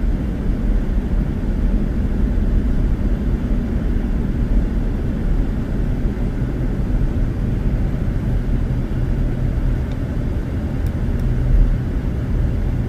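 Car driving along a road: a steady low rumble of engine and tyres heard from inside the cabin.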